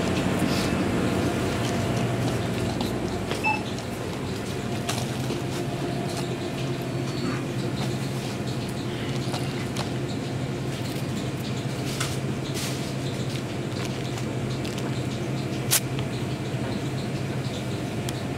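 Steady hum of a convenience store's ventilation and refrigeration equipment, with a few scattered sharp clicks.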